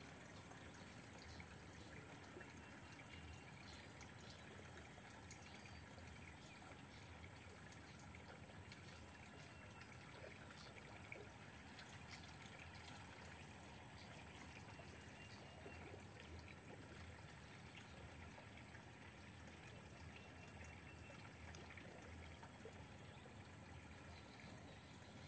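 Near silence: faint steady outdoor background noise with a thin, steady high tone.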